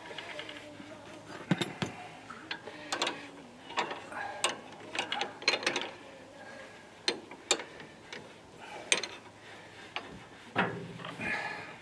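Hand tools working on metal parts: a string of sharp, irregular clicks and clinks, some coming in quick pairs, with no steady rhythm.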